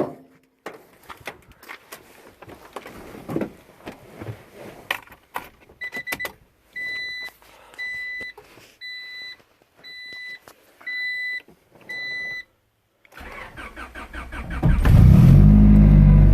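Clicks and rustling, then an even run of single-pitch beeps from the car's warning chime, then the starter cranking for about a second and a half before the 1996 Honda Prelude's H23A1 four-cylinder catches on a cold start and settles into a loud, steady idle.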